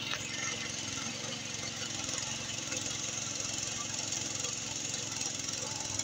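Power weeder's small engine running steadily under load as the machine churns through a wet paddy field, with a steady high hiss over it.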